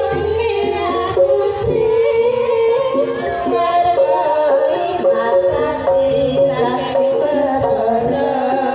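A woman sings into a microphone over live traditional Indonesian music with drum accompaniment, the voice amplified through the sound system.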